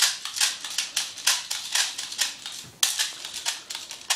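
Airsoft BB speed loader being worked to fill a mid-cap M4 magazine: an irregular run of quick plastic clicks with BBs rattling, several per second.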